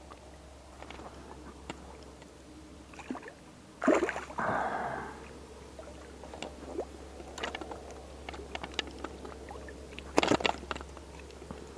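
Hooked common carp splashing in shallow water at the bank as it is grabbed by hand, with a loud splash about four seconds in and another sharp splash near the end as it is lifted out. Small knocks and rustles of handling in between.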